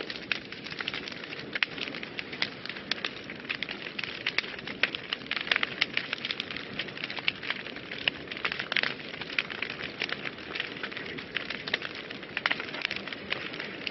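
Wood fire burning in a fireplace, crackling and popping steadily: many sharp irregular snaps over a soft hiss of flames.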